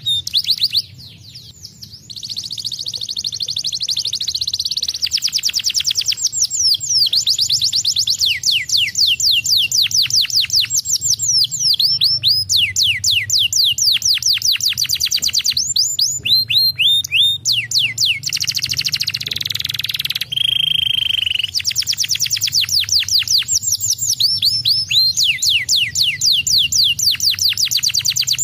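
Domestic canary singing a long, nearly unbroken song of fast trills: rapid runs of repeated falling whistled notes, several a second, with a brief pause about a second in and a short held whistle about two-thirds of the way through. A faint steady low hum lies beneath.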